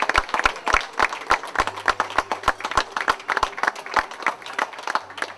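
Audience applauding: many people clapping irregularly, thinning a little towards the end.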